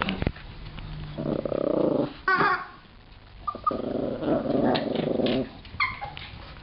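A dog growling in two long growls while it plays with a chicken toy, with short high squeaks from the toy in between.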